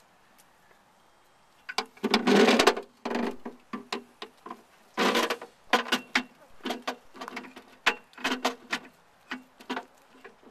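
A ram's curled horns knocking and scraping against the open battery enclosure of a solar well pump, rattling its door and box in irregular clattering bursts. The longest, loudest scrapes come about two seconds in and again about five seconds in, with shorter knocks between.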